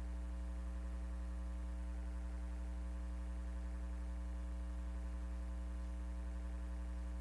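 Steady low electrical hum with a buzzy ladder of overtones and no programme sound: the mains hum of a blank, dead stretch in a taped TV broadcast.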